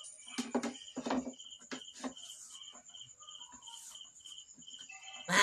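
A cricket chirps steadily about three times a second over a constant high insect whine. Two short vocal sounds come in the first second or so, and a single sharp knock near the end is the loudest sound.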